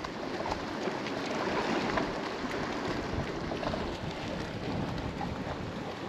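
Wind blowing across the microphone: a steady rushing noise with gusty low rumbles.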